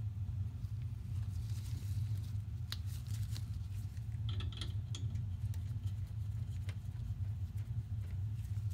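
Scattered light clicks and rustling from hands working around a furnace gas valve and its pressure-gauge hose, over a steady low hum.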